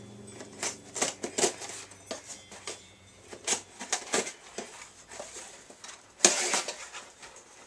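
A carpet knife scraping and clicking against a small cardboard box as it is cut open, followed by a brief, louder ripping sound a little after six seconds in as the cardboard or tape is torn.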